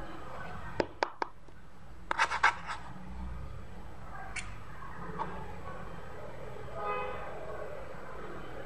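Small cardboard product box handled in the hands: three sharp clicks about a second in, then a louder cluster of taps and clicks about two seconds in, and one more click later, over a steady low background rumble. Near the end a short pitched tone sounds once.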